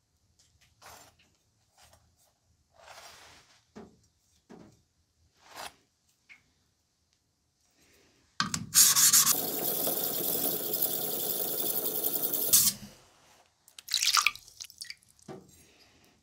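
Water dripping and splashing around a wet whetstone and knife blade. About halfway through, a steady stream of running water starts suddenly, runs for about four seconds and cuts off, followed by a couple of louder splashes.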